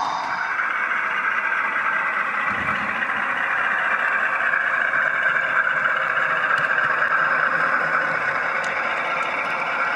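Model Class 52 diesel-hydraulic locomotive's DCC sound decoder playing a steady diesel engine sound through its small onboard speaker as the model runs slowly.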